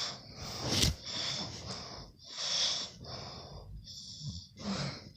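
A man snoring in his sleep: a run of irregular hissing breaths, with a sharp catch in the breath about a second in.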